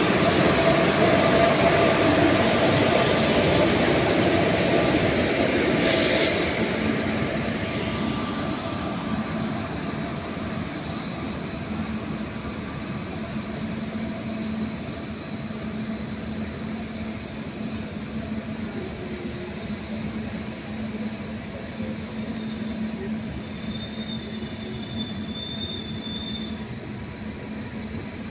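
An electric locomotive and passenger coaches of an express train departing and rolling past. It is loudest at first as the locomotive goes by with steady tones over its rumble, with a sharp click about six seconds in. Then comes the quieter rumble and hum of the coaches, with a faint high wheel squeal near the end.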